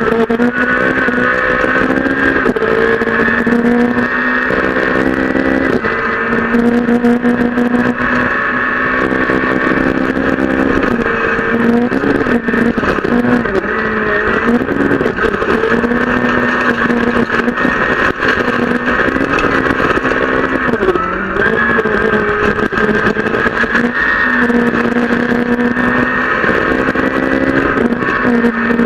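Peugeot 208 R2 rally car's four-cylinder engine, heard from inside the cabin, run hard at high revs: held near the top of the rev range, stepping through gear changes and dipping and picking up again when lifting for corners. Gravel rattles and pings against the underbody throughout.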